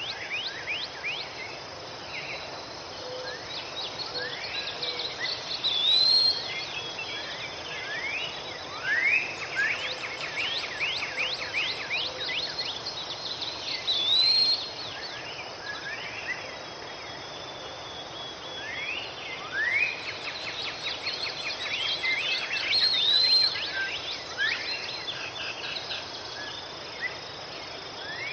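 Tropical forest ambience: many birds calling in quick rising whistled notes over a steady insect hiss, with one curved call recurring a few times.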